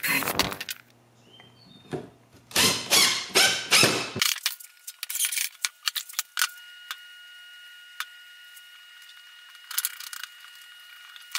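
Power drill running in several strokes, with metal clinking, for about four seconds; the drilling cuts off suddenly, leaving scattered light clicks and knocks over a faint steady high hum.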